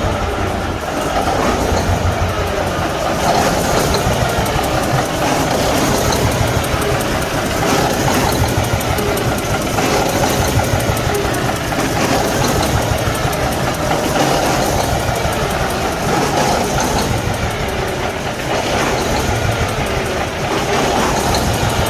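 Cummins ISX15 inline-six diesel engine running with a steady, rapid clatter. It is misfiring, a sign of internal engine damage.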